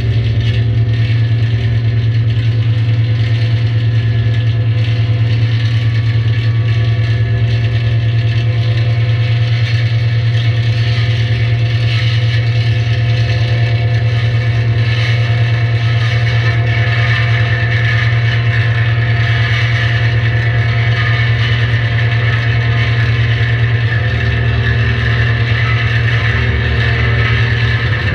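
Electric guitar laid flat and played through a chain of effects pedals, giving a loud, steady low drone with a noisy, rattling layer on top that barely changes.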